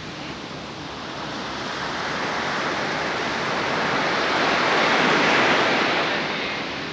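Sea surf breaking on a sandy beach: a rush of wave noise that builds over a few seconds, is loudest about five seconds in, then eases off.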